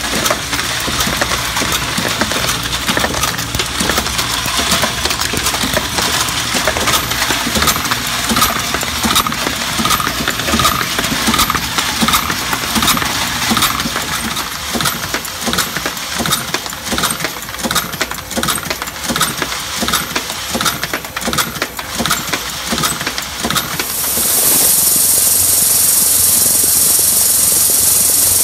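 Camdex automatic ammunition loading machines running, cycling with regular mechanical clicks and clacks as loaded brass cartridges clink into a collecting tray. Near the end this gives way to a steadier, louder rattling hiss from a vibrating plate full of brass cases.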